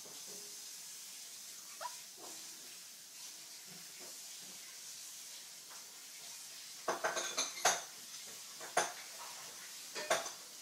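Light clinking and rattling: a quick cluster of sharp clicks about seven seconds in, then single clinks near nine and ten seconds, over a faint steady hiss.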